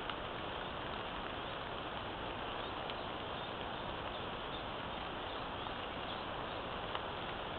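Steady hiss from a trail camera's built-in microphone, with a few faint short ticks or chirps over it.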